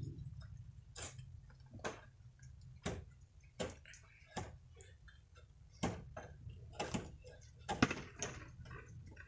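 Irregular sharp clicks and knocks, roughly one a second, over a low steady rumble.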